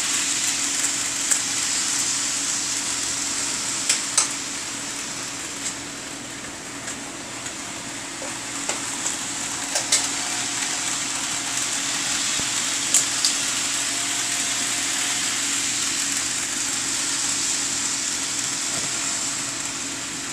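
HO scale model train running around the layout: a steady hissing whir that slowly fades and swells, with a few sharp clicks.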